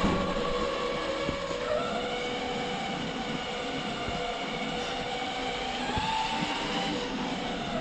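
Electric ride-on toy car's drive motor and gearbox whining as it drives itself across a tiled floor, with several tones that slowly rise and fall in pitch as its speed changes.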